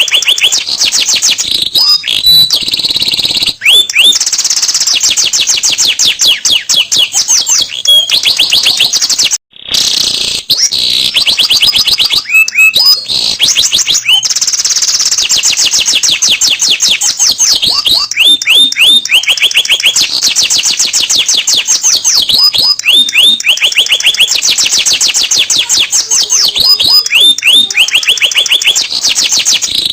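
Domestic canary singing a long, continuous song of rapid trills and rolls with repeated rising whistled notes, loud, with one brief break about nine and a half seconds in.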